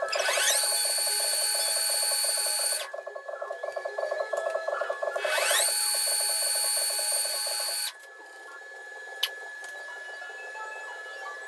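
Electric motor whining up to a steady pitch and running briefly, twice, each run cutting off abruptly after a couple of seconds, over a steady rhythmic ticking.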